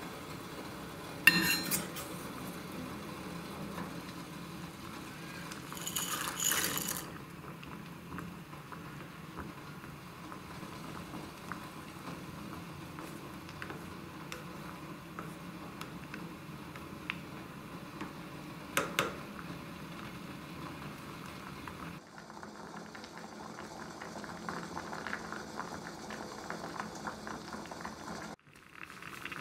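Water at a rolling boil in a stainless steel pot, bubbling steadily, while pasta is stirred in it with a wooden spoon. A sharp knock comes about a second in, and a brief louder rush around six seconds.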